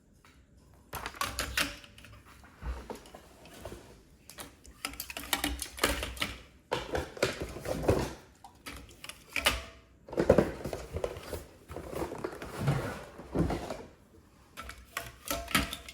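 Aluminium cans of sparkling water clacking and knocking as they are set and pushed into the rows of a plastic drink organizer, in irregular clatters with short pauses.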